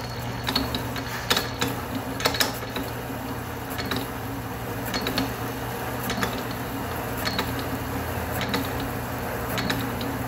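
Atlas metal lathe running under power, its cutting tool turning down the outer diameter of a backplate blank that the machinist takes for cast iron. The machine's drive gives a steady hum, broken by irregular sharp ticks and clicks from the cut.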